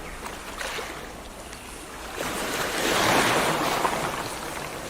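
A rushing noise that swells to its loudest about three seconds in, then eases back.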